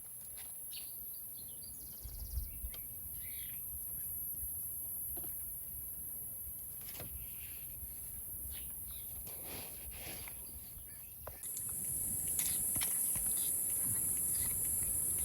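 Outdoor ambience: a steady high-pitched insect drone that gets louder about eleven and a half seconds in, with scattered light clicks and rustles.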